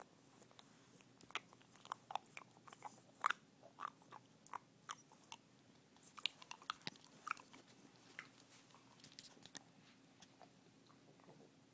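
English bulldog puppy chewing a bottle cap: irregular crunching clicks of teeth on the cap, thickest from about one to eight seconds in, then thinning out.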